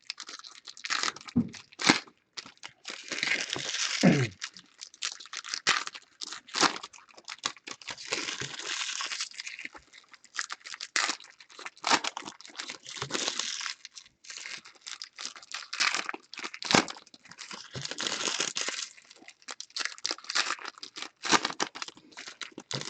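Plastic and foil packaging of a baseball card box being torn open and crinkled, in irregular crackling rustles with sharp snaps.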